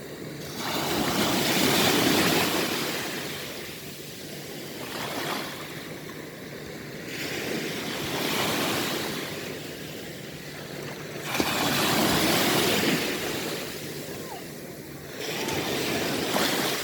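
Ocean waves breaking on the shore, the surf swelling and washing back in five surges a few seconds apart, the loudest crashing in sharply about eleven seconds in.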